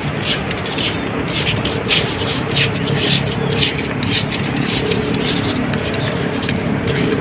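Footsteps scuffing on wet, rippled sand at a walking pace, about two a second, over a steady rushing background.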